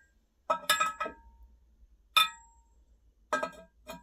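Sharp clinks of hard objects knocking together as they are handled, each ringing briefly. There is a quick cluster in the first second, one loud ringing clink about two seconds in, and a few more near the end.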